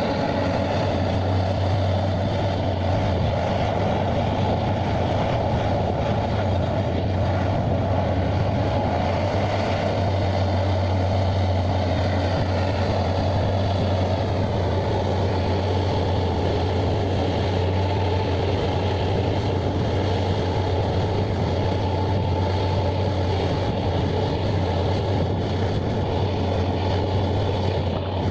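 Heavy machine engine running steadily, a constant low hum that holds the same pitch throughout.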